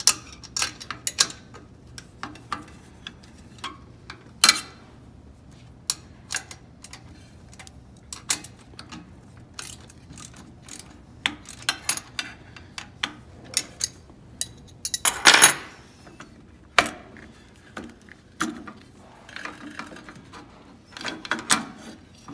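A wrench clinking and clicking against a bolt and the aluminium carriage frame of an Innova longarm quilting machine as the bolt is loosened. The sharp metallic ticks are irregular, with one longer scrape about fifteen seconds in.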